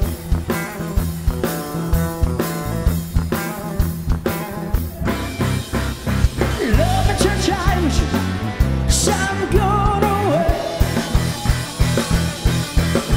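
Rock band playing: drum kit, bass and electric guitars drive a steady beat with chords, and a bending lead melody comes in about halfway.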